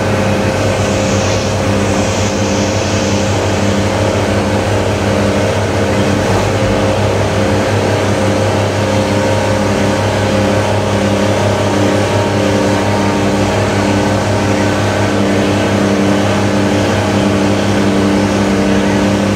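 New Holland T7060's 6.7-litre FPT six-cylinder diesel running steadily at full load, driving a PTO dynamometer. The engine holds an even pitch throughout.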